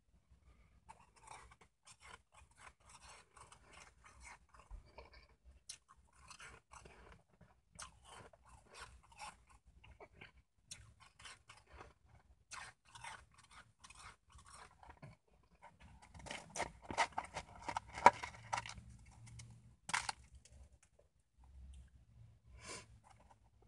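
Shaved ice being chewed and crunched between the teeth in big bites: a long run of irregular crunches, thickest and loudest about three quarters of the way through.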